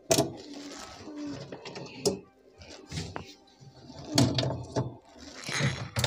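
Screws being undone from a refrigerator's evaporator plate by hand with a screwdriver: irregular clicks and scrapes of the tool on the screw heads and the plastic liner.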